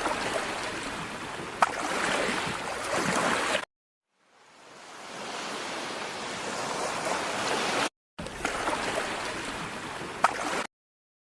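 Rushing water sound effects, like surf or a stream, played as three short clips one after another. Each clip cuts off abruptly, the second fades in slowly, and a few sharp clicks are heard in the first and last.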